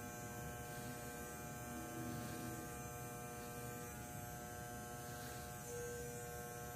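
Andis Master corded hair clippers buzzing steadily as they cut hair with the blade opened all the way.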